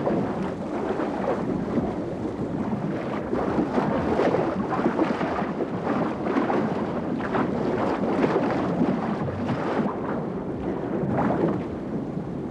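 Sea water splashing and churning hard at the surface beside a boat as a great white shark thrashes, a continuous rough rush with irregular surges.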